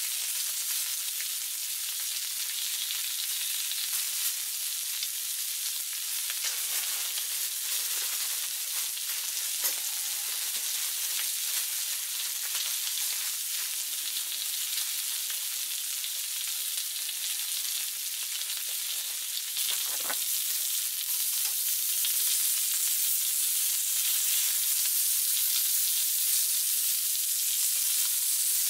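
Meat sizzling steadily on a hot carbon-coated steel griddle over a fire. The sizzle grows a little louder over the last several seconds.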